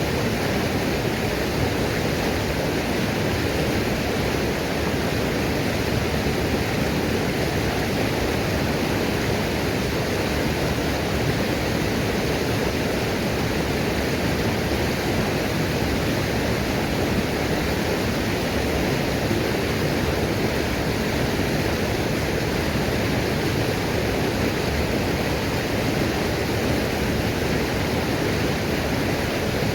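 Small waterfall rushing and splashing steadily, an even, unbroken roar of falling water.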